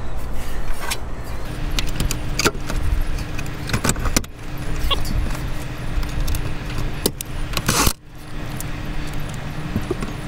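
Metallic clicks and clatter as the sheet-metal cover of a rooftop RV air conditioner's control box is handled and fitted back in place, over a steady low wind rumble on the microphone.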